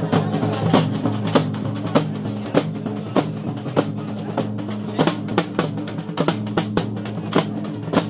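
Barrel drums beaten with sticks in a quick, uneven rhythm of sharp strokes, over a steady low droning tone.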